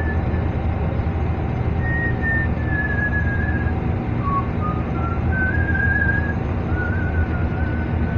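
Shrimp boat's engine running with a steady low drone, while someone whistles a slow tune over it, one held note after another rising and falling.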